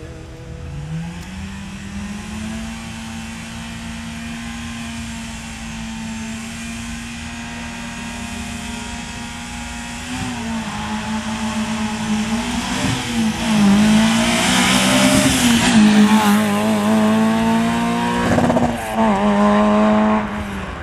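Peugeot 106 rally car's engine held at steady raised revs on the start line, then revved hard as the car launches from the stage start about ten seconds in, pulling away loudly with the revs climbing and dropping through the gears.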